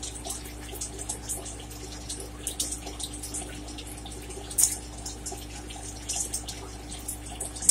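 Irregular small crackles and wet clicks of blue crab shell being cracked and picked for its meat, mixed with wet eating sounds; a sharper crack about four and a half seconds in.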